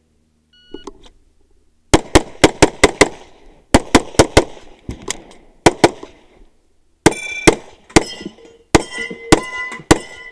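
A 9mm SIG P320 pistol fired in fast strings of shots in quick pairs and bursts, starting about two seconds in. About a second in, a short electronic shot-timer beep gives the start signal. In the later part, steel targets ring out with hits.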